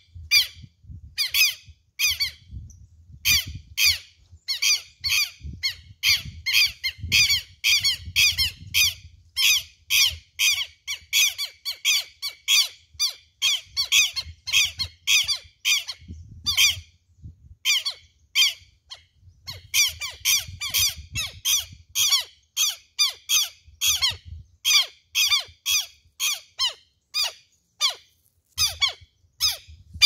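Southern lapwing (quero-quero) giving sharp, strident alarm calls in fast repeated runs, several calls a second, with brief pauses about halfway and near the end. Typical of an adult lapwing scolding a person standing close to its hidden chick.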